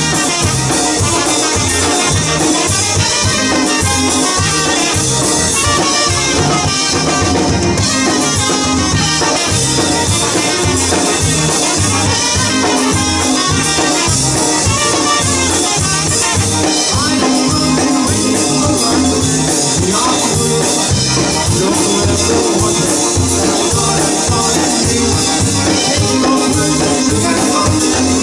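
Live polka band playing: two trumpets, piano accordion, concertina, electric bass and drum kit over a steady oom-pah beat.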